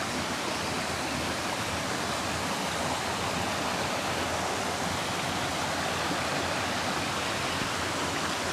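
Steady rush of stream water flowing over rocks, an even hiss with no separate splashes.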